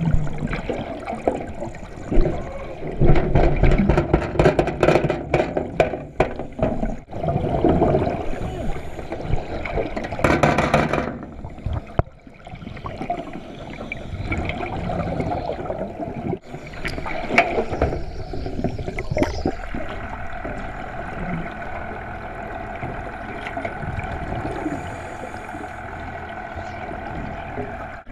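Water gurgling and sloshing around a submerged camera, with a cluster of irregular clicks and knocks a few seconds in and a short rushing burst of bubbles about ten seconds in.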